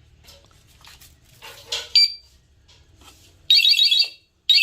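Aftermarket electric-scooter anti-theft alarm unit being tested: a short beep about two seconds in, then the alarm goes off in loud warbling bursts of under a second each, the second starting just before the end.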